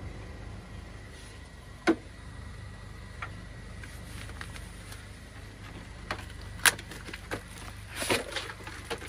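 Scattered knocks and clicks of oil filter housing parts and tools being handled, loudest about two seconds in and again near seven seconds, with a small flurry near the end, over a steady low hum.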